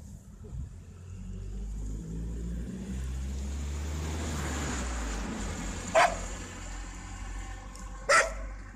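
A car's engine rumble swelling as it passes and fading away, then a dog barking sharply twice, about two seconds apart.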